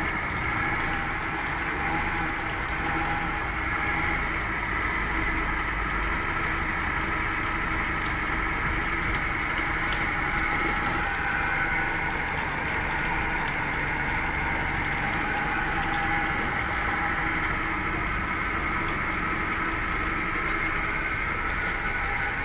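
Yamaha F100 four-stroke outboard, a four-cylinder engine, idling steadily at an even, unchanging speed.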